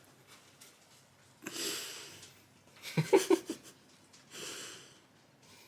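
Two breathy exhalations with a short, stuttering voiced burst between them, like a person laughing under their breath.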